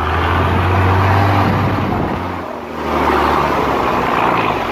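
Mercedes-Benz Unimog's diesel engine running steadily under load, a low hum under loud rushing and churning water as the truck wades through. The sound dips briefly about halfway through, then picks up again.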